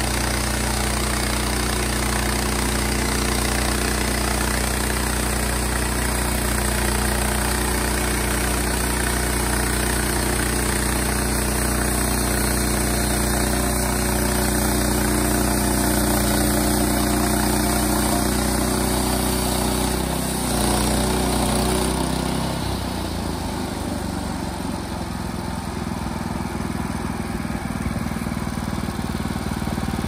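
Wood-Mizer LX25 portable band sawmill running steadily, its engine under load as the band blade saws lengthwise through a log to cut 2x4s. About two thirds of the way in, the engine note changes and the sound gets a little quieter as the head reaches the end of the cut.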